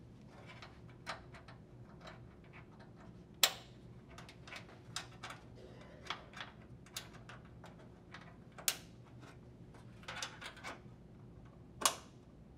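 Plastic retaining clips being pressed and snapped into a GE dryer's front panel: a scattered series of sharp clicks and snaps, three of them clearly louder, with lighter ticks of handling in between.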